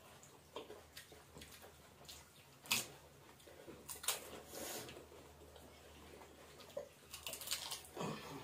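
Pani puri being eaten: crisp puri shells cracked and dipped into bowls of spiced water, giving scattered small splashes, slurps and crunches, the sharpest a little under three seconds in.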